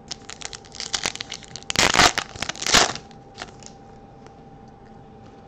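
Foil Topps Chrome trading-card pack being torn open, its wrapper crinkling and crackling, with the loudest rips about two seconds in and again near three seconds.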